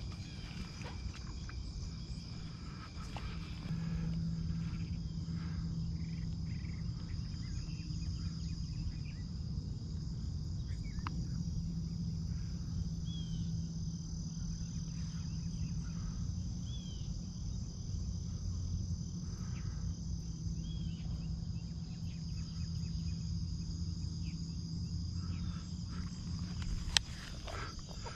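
Steady chorus of dusk insects, an even high drone that holds throughout, over a low steady rumble. A few short rising-and-falling calls sound in the middle. A single sharp click comes near the end.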